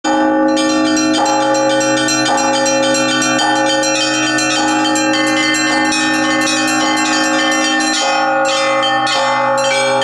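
Russian Orthodox church bells rung by one bell ringer, who pulls ropes tied to the clappers of fixed bells. Small bells are struck in rapid, dense strokes over a deeper bell struck about once a second, and all keep ringing into one another.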